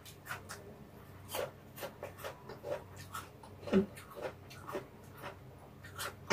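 Close-miked chewing and wet mouth sounds of a person eating stir-fried ramen with bean sprouts, with scattered small clicks throughout and one louder mouth sound a little past halfway.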